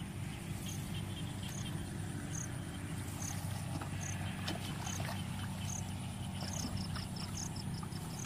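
Steady low engine-like drone, with a short high chirp repeating about once a second and a quick rapid run of high chirps near the end.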